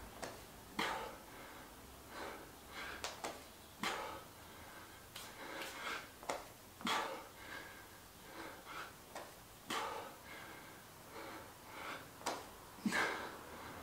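A man breathing hard under exertion during slow push-ups: a sharp, forceful exhale about every three seconds, with shorter breaths in between.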